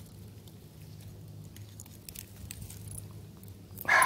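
Faint clicks and light rattling of a fish stringer being handled as a caught crappie is threaded onto it, over a steady low hum.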